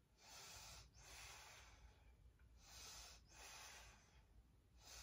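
Faint, heavy breathing of a woman holding a strenuous yoga backbend (bow pose): soft rushes of air in and out, about two to three full breaths in a row.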